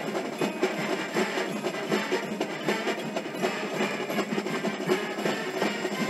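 College marching band playing a tune with drums, on a recording with almost no deep bass.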